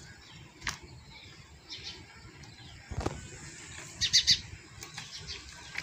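Small birds chirping in short quick bursts, the loudest cluster about four seconds in. About three seconds in, a dull thud as a metal pan of wet mud is set down on the cage's mud roof.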